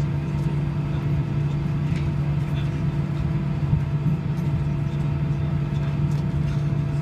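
Cabin noise of an Airbus A319 taxiing with its jet engines at idle: a steady hum with a few steady tones.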